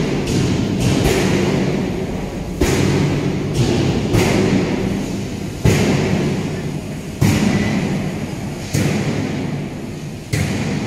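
A run of heavy thuds, one about every second and a half, each dying away slowly over a low steady drone.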